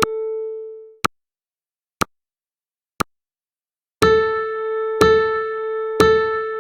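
Electronic countdown music: a bell-like synth tone struck and fading out, then three short ticks a second apart, then the tone struck again once every second like a clock pulse.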